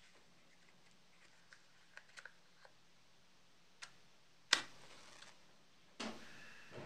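Light clicks and rattles of a matchbox being handled. Then a wooden match is struck: a sharp scrape about four and a half seconds in, and another about six seconds in that flares and fades slowly.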